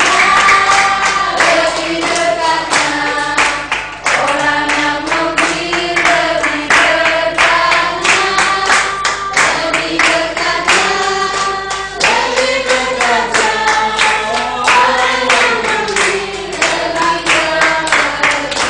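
A group of men and women singing a worship song together, clapping their hands to the beat.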